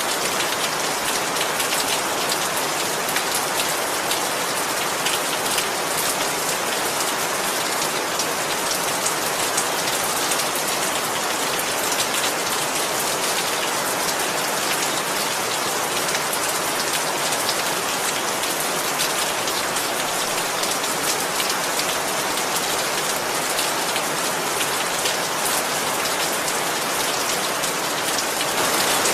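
Steady heavy rain falling on a surface, a dense even hiss of many drops with fine individual drop ticks.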